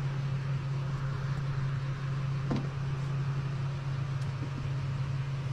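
Motor vehicle engine idling steadily, a constant low hum, with a faint tick about halfway through.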